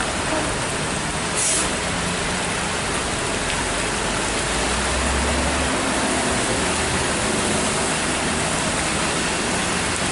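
Steady hiss of heavy rain on a wet road, with the low drone of a box truck's diesel engine as the truck climbs slowly away. A short hiss sounds about a second and a half in.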